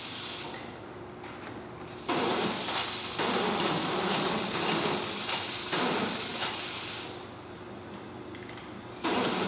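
Mechanical rattling and sliding of a Universal Ammunition Loading System as 20mm cannon rounds are handled. It gets louder about two seconds in and stays that way until about seven seconds, then there is a short louder burst near the end.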